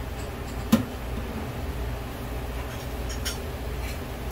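Boiled spaghetti and its cooking water being tipped out of a large aluminium pot into a strainer in a steel sink, with a steady rush of draining water. There is one sharp metal knock about three-quarters of a second in and a few light clinks near 3 seconds.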